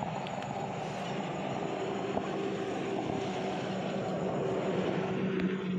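Many freshly caught tilapia wriggling and slapping wetly against each other in a container, a dense, continuous crackle, over a steady low hum.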